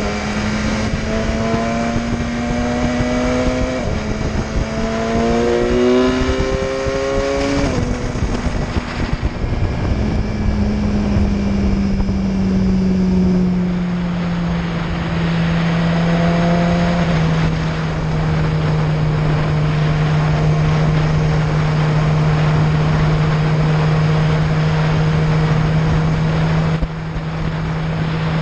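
Motorcycle engine heard from on board, pulling up through the gears with two shifts in the first eight seconds or so, then easing off and settling into a steady cruise. Wind rushes over the microphone throughout.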